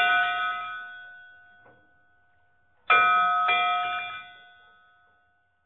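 Struck bell chimes ringing out: one strike at the start, then two more about three seconds in, half a second apart, each fading away over about two seconds.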